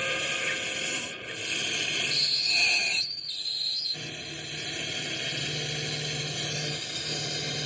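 Phantom Cell touch-based noise and soundscape synthesizer playing a noisy texture with several held high tones. About three seconds in, the middle and upper tones drop away for about a second; after that a low steady tone sits under the noise.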